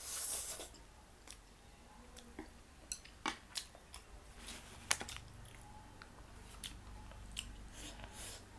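A person chewing and biting food up close, with a short louder burst at the start and scattered sharp mouth smacks and clicks after it.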